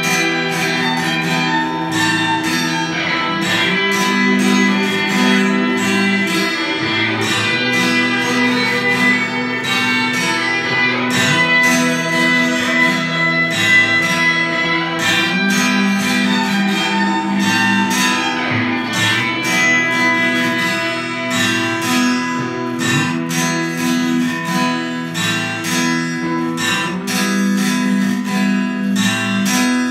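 Guitar-led music: plucked and strummed guitar with a steady rhythm.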